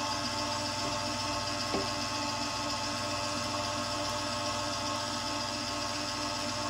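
Breville stand mixer running at a constant speed, its whisk attachment beating whipping cream in a stainless steel bowl: a steady motor hum and whine.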